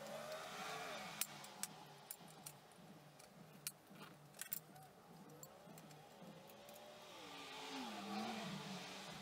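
Scattered light clicks and taps of small metal parts of a gumball machine's mechanism being handled and fitted. Behind them, a faint motor-vehicle engine rises and falls in pitch, most clearly in the second half.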